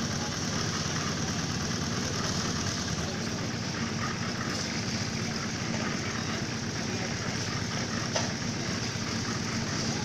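An engine running steadily at a constant speed, with a single sharp knock about eight seconds in.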